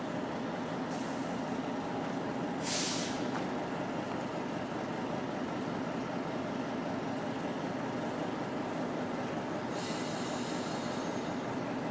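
Diesel locomotives 202 and 307 running steadily, with a sharp burst of air hiss about three seconds in and a longer hiss near the end, typical of air brakes venting.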